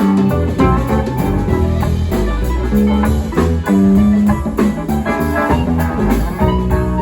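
Live band playing with guitar, bass and drums at a steady groove.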